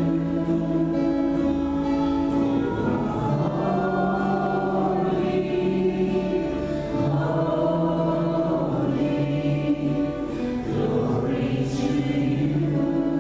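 A choir singing religious music, with long held notes that move from one chord to the next.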